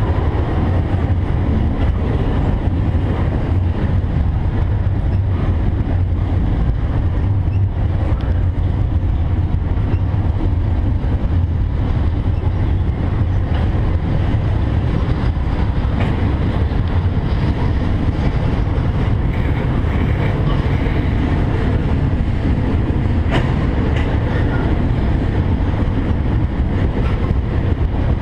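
Intermodal freight cars rolling past on the rails: a steady low rumble with a few faint clicks scattered through it.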